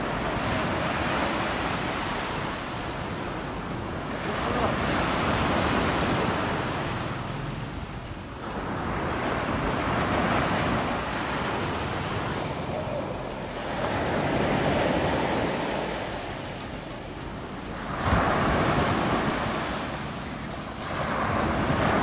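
Sea waves washing onto a beach, swelling and fading about every four to five seconds, with wind buffeting the microphone.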